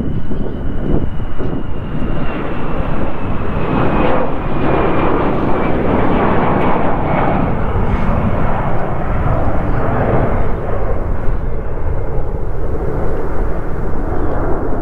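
Twin-engine jet airliner taking off and passing by, its loud engine noise swelling to a peak around five seconds in and then slowly easing as it climbs away, with a high whine that falls in pitch as it goes by.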